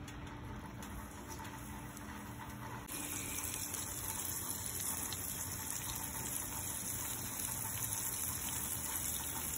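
Mahi mahi fillet sizzling on a hot, oiled Blackstone flat-top griddle: a steady hiss that jumps louder and brighter about three seconds in, as the fish goes down on the oil.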